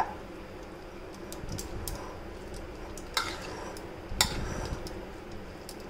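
Metal spoon stirring a moist paneer-and-vegetable filling in a glass bowl. Soft, steady mixing, with sharp clinks of the spoon against the glass at the start, about three seconds in and again about a second later.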